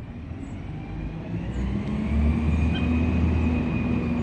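Traffic on a nearby highway: a road vehicle passes close by, its rumble building about a second in and staying loud, with a steady tyre and engine whine.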